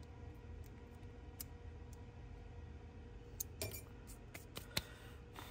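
A few light clicks and clinks of small metal repair tools being handled and set down on a silicone work mat, bunched between about three and a half and five seconds in, the sharpest near the end, over a faint steady hum.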